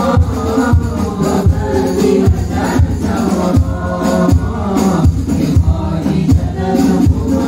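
A group of men singing sholawat, Islamic devotional songs in praise of the Prophet, together through microphones and a PA, over a steady beat of hand drums.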